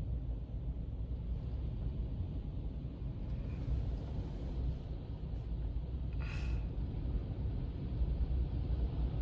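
Wind buffeting the microphone: a steady low rumble. A brief higher-pitched sound comes about six seconds in.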